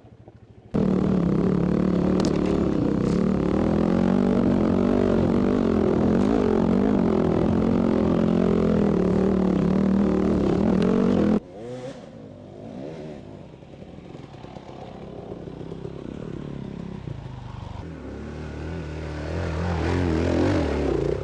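Yamaha dirt bike engine running loud and close, its revs rising and falling as it rides along a trail, cutting off abruptly about eleven seconds in. After that it is quieter and uneven, until a Kawasaki dual-sport motorcycle's engine comes in lower-pitched and grows louder near the end as it climbs a rough slope.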